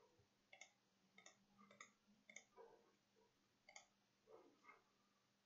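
Faint, sharp computer mouse clicks, about five spread irregularly across a few seconds, with a few softer handling sounds between them.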